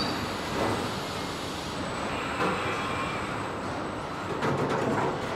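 Automotive paint-booth noise from painting robots and booth air: a steady rushing hiss with a faint high steady tone, and a few clicks near the end.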